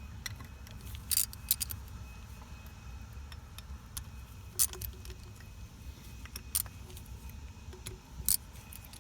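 Metal tools clinking against an A/C compressor as a T40 Torx bit is set onto the housing bolts: a handful of sharp, scattered clinks over a steady low background rumble.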